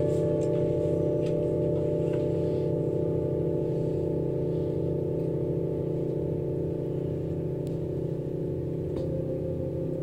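Several metal singing bowls ringing on after being struck: a chord of steady overlapping tones with a slow wavering beat, gradually fading. A few faint light taps are heard over it.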